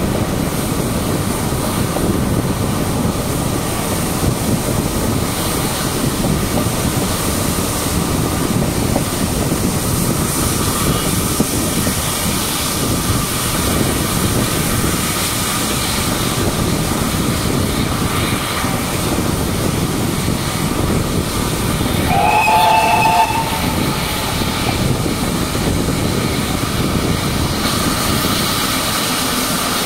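Steady rumble and wind noise of a steam-hauled passenger train running, heard from an open carriage window. About two-thirds of the way through, the Great Western steam locomotive at the head gives one short whistle lasting about a second and a half.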